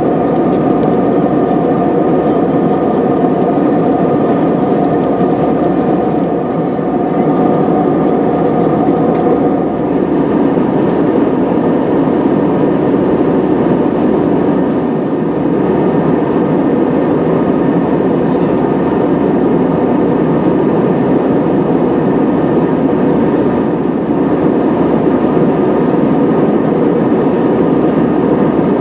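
Airliner cabin noise from inside an Airbus A320-214 in flight: the steady drone of its CFM56-5B engines and rushing air, with a faint held whine that drops away about ten seconds in.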